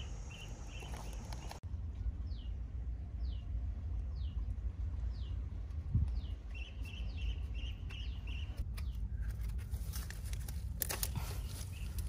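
Outdoor jungle ambience: a bird repeats a short, high, downward-sliding note about once a second, over bursts of rapid pulsed chirping and a steady low rumble. Near the end come scattered rustles and clicks.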